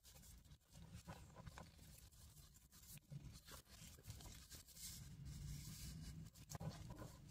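Faint rustling of paper and fabric journal pages being handled and turned, with a few soft taps and clicks.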